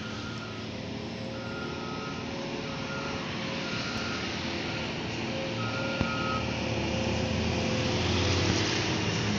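Highway traffic passing: cars, motorbikes and a large coach, growing louder near the end as the coach comes by. A high beeping tone sounds on and off in short bursts through the first two-thirds.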